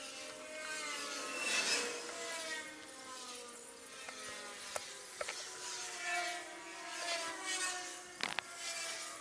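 Kevlar thread being pulled through the rubber of a truck tyre sidewall as it is hand-stitched with an awl: repeated rasping pulls about a second apart, with a few small clicks and a sharp knock near the end.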